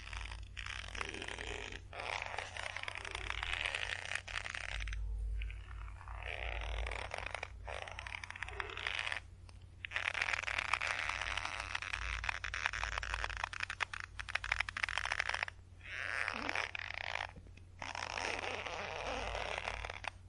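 Rope creaking under tension: long, rough, grainy creaks of one to several seconds each, separated by short pauses.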